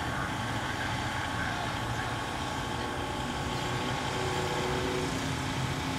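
Steady engine noise of idling vehicles, an even hum with no sharp events.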